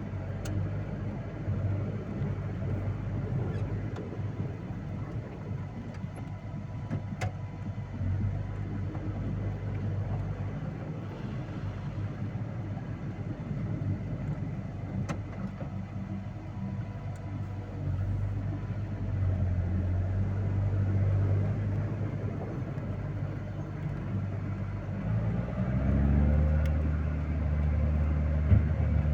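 Vehicle engine running steadily while driving; about 26 seconds in the engine note rises and gets louder as it accelerates.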